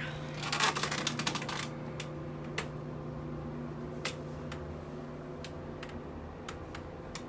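A quick run of sharp clicks about half a second in, lasting a little over a second, then single clicks every second or so, over a steady low hum.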